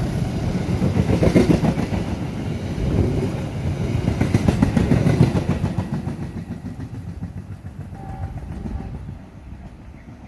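A train passing close by on the tracks, loud for about six seconds, then fading away as it moves off.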